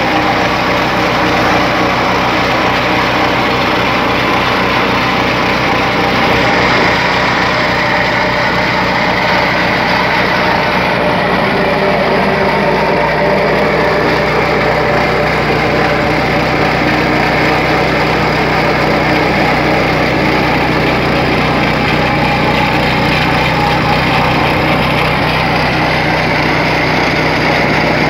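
Honda GX petrol engine of a plate compactor running at a steady speed, with no change in pitch or level.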